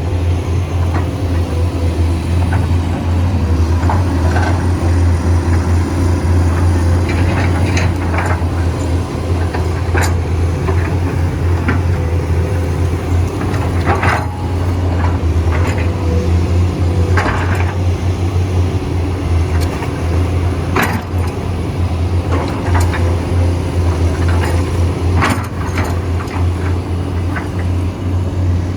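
Heavy earthmoving machine's diesel engine running steadily, with a few sharp metallic clanks now and then.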